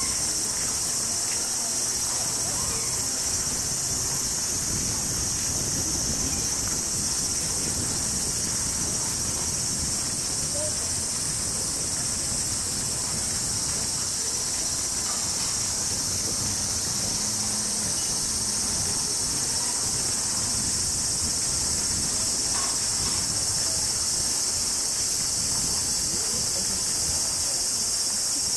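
A chorus of cicadas giving a steady high-pitched buzz that does not let up, with faint people's voices underneath.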